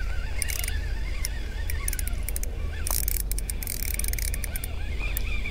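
A spinning reel being cranked to bring in a hooked fish, giving bursts of fast clicking, over a steady low rumble.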